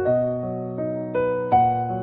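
Background music: a gentle electric piano playing a slow melody, one note after another.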